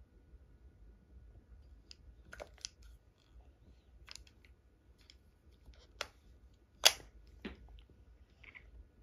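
A few scattered light clicks and taps in a small room, with the loudest sharp click about seven seconds in.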